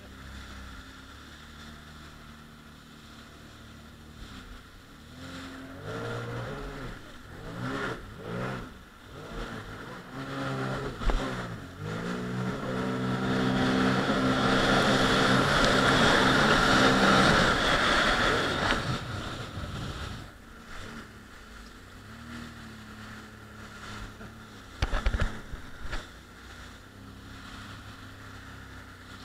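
Jet ski engine idling, then revved in several short pulses that rise and fall in pitch, before running at full throttle for about six seconds with the rush of water spray, then easing back to idle. A brief cluster of sharp knocks comes near the end.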